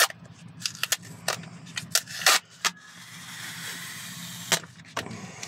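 Things being handled and rummaged through by hand: a string of sharp clicks and knocks, the loudest a little over two seconds in, followed by a rustle lasting over a second.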